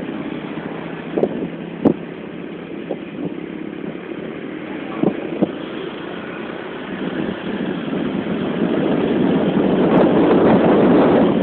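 Motor vehicle running on a road: a steady engine, road and wind noise that grows louder over the second half, with a few short knocks in the first half.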